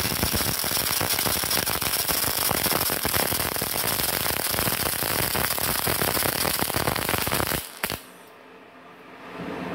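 MIG welding arc from a MultiPro MIG-MAG 350N inverter welder running a bead on steel plate: a steady, dense crackle. It stops about eight seconds in with a brief pop as the arc is broken.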